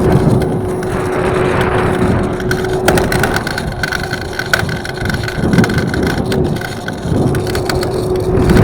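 Evercross H5 electric scooter being ridden, its front wheel grinding from bad bearings: a steady hum over a rough rumble and rattle, with a higher whine joining about three seconds in and a few sharp clicks around then.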